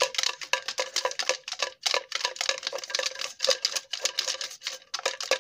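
Small white plastic jar shaken rapidly by hand, the two drawing entries inside rattling against its walls in a quick, irregular run of clicks.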